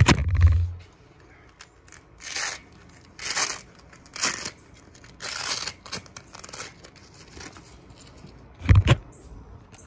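A phone being set down with a knock, then hook-and-loop fasteners on a plate carrier being ripped open in about six short tears, as the carrier is opened to take out its plates. A heavy thump comes near the end.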